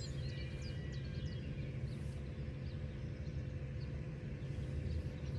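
Small birds chirping a few times about a second in, over a steady low rumble with a faint steady hum.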